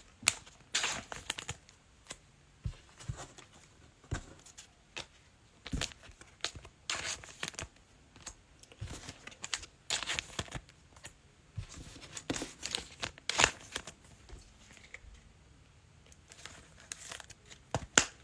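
Foil trading-card packs being torn open and handled, with crinkling wrappers and shuffling cards in irregular short bursts.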